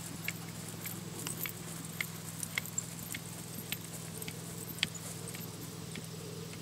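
Light, irregular clinks of a gaited horse's bridle and saddle tack jingling, over a steady low hum.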